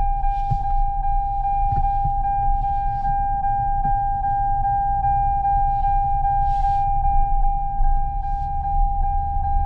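Steady electronic warning tone in the cab of a 2022 Toyota Tundra, held at one pitch with faint regular ticks on it, over the low rumble of the truck rolling slowly.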